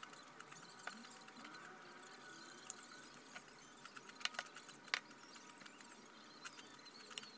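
Metal fork clinking and scraping against a ceramic bowl while picking up salad: scattered small clicks, the sharpest a few about four to five seconds in, over a faint hiss.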